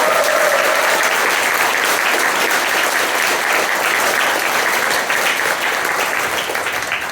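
Crowd applauding and cheering, with dense clapping that tapers off near the end.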